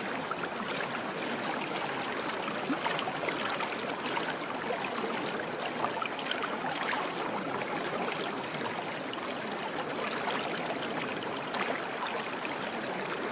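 Steady running water, like a flowing stream, an even rushing and trickling with no pauses.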